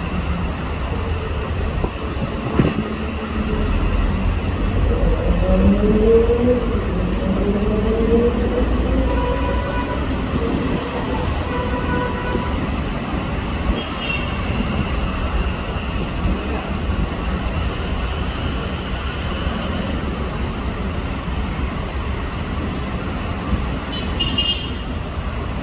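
JR 205 series electric commuter train running on the tracks with a steady low rumble. Its motors whine with a pitch that rises over several seconds, as when the train speeds up. A short high-pitched squeal comes near the end.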